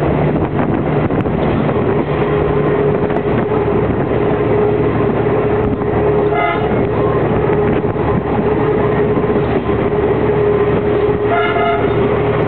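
Steady running noise of a CP 9630-series diesel railcar heard from its side window, with wind and a constant whine. The horn gives two short toots, about six and a half seconds in and again near the end.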